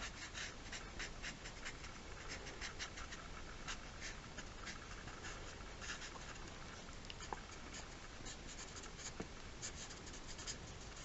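Sharpie permanent marker stroking on drawing paper: a faint series of many short, quick scratchy strokes as lines and shading are inked.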